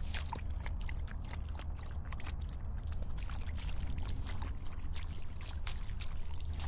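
Footsteps crunching irregularly on a path, over a steady low rumble of wind on the microphone.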